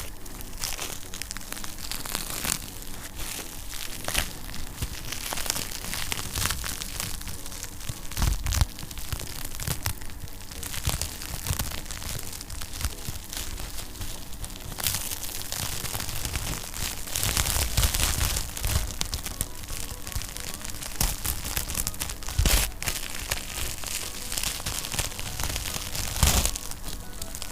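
Wood fire crackling, with frequent irregular sharp pops and snaps over a soft hiss.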